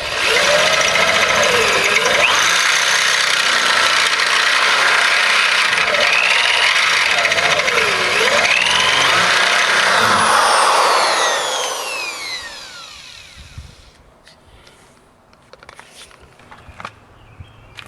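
Electric drill boring into a rusty steel frame rivet, its pitch wavering up and down as the bit loads and bites. About eleven seconds in the trigger is released and the motor winds down. A few small metallic clicks follow.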